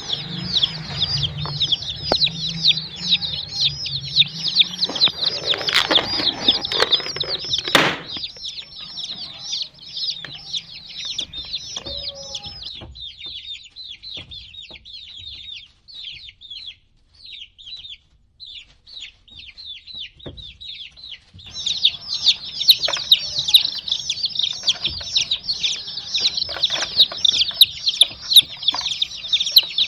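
A flock of baby chicks peeping together in rapid, high-pitched cheeps. The chirping thins to scattered peeps a little before halfway, then comes back dense for the last third.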